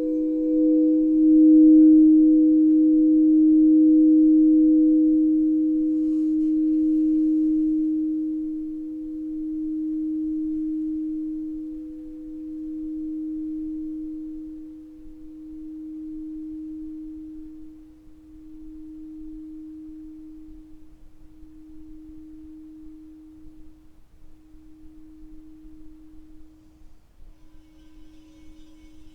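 Singing bowl ringing with one low, steady hum and faint higher overtones. It swells over the first couple of seconds, then slowly fades, wavering in a slow pulse as it dies away.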